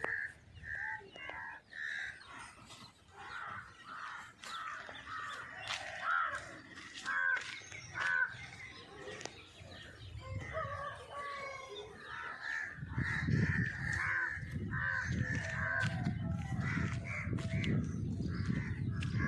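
Many birds calling, crows cawing among them, in short repeated calls. About two-thirds of the way through, a low rumbling noise joins in under the calls.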